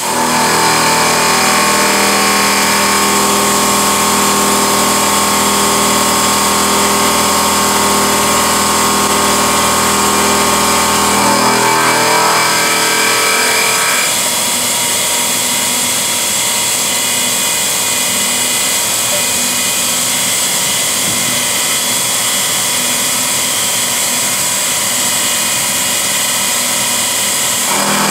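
Milling machine face-milling a metal plate: the spindle and face cutter run steadily under cut, a loud machining sound with steady whining tones. The sound changes about 11 to 14 seconds in, its low hum dropping away.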